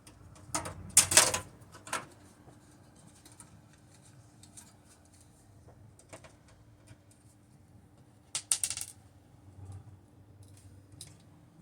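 Clicks and clatters of a screwdriver and screws being worked on a desktop computer case during disassembly: a loud cluster of clicks about a second in, another about two-thirds of the way through, and faint scattered ticks between.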